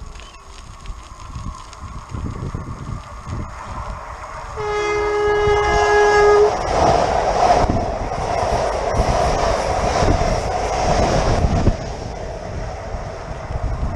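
Renfe 447-series electric commuter train sounding its horn in one blast of about two seconds, about five seconds in. The train then rushes past close by with wheel and air noise and clickety-clack, while strong wind buffets the microphone.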